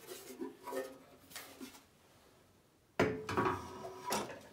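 Metal parts clanking as they are handled. About three seconds in comes one louder metallic clang that rings briefly before fading.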